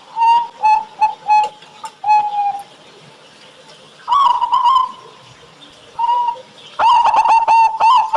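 Zebra dove (perkutut) cooing: a few short separate coo notes, a pause, a brief burst, then about a second before the end a fast, even run of coos, about four to five a second.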